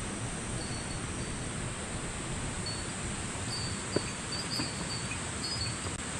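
Steady rush of a mountain stream, with a run of short, high chirps over it and a single sharp click about four seconds in.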